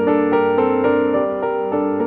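Background keyboard music, a steady run of notes changing about four times a second.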